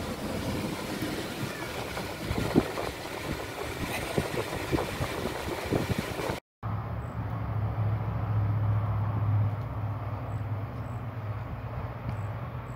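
Car cabin road noise while driving, with a few sharp knocks, the loudest about two and a half seconds in. After a sudden cut, a steady low hum.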